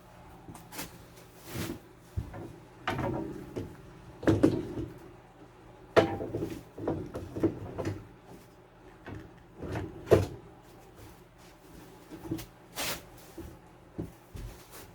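Irregular metal clunks, knocks and scraping as an ATV winch is handled and slid into its mount plate on a side-by-side's front end.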